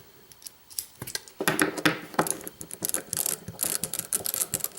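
A dense run of small, sharp metallic clicks and ratcheting rattles from hand tools and lock parts being handled, starting about a second and a half in.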